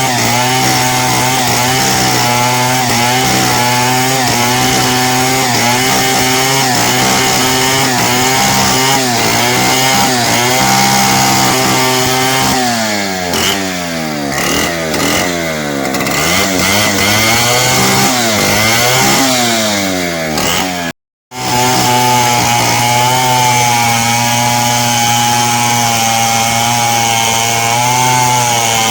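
Two-stroke chainsaw running at high revs while ripping timber into beams and planks. About halfway through, its pitch drops and climbs several times as the throttle is eased and opened again. It cuts out for an instant, then runs steadily at full speed again.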